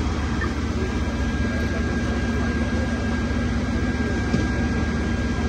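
Fire apparatus diesel engines running steadily, a constant low drone with a thin, steady high whine over it; the hum in the middle grows stronger about a second and a half in.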